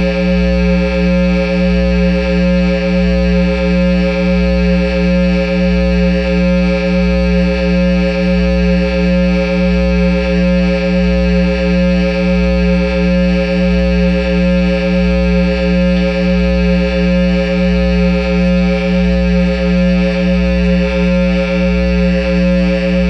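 Guitar amplifier hum from a Line 6 amp head and Peavey speaker cabinet: a steady, loud low electrical buzz with many overtones and a faint regular pulse, with no note being played.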